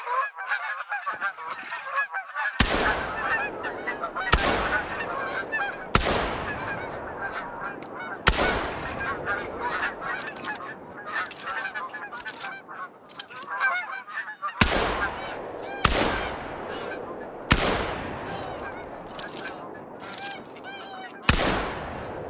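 Geese honking continuously while shotguns fire about eight sharp shots in uneven groups, each ringing out briefly; the first comes a few seconds in and the last near the end.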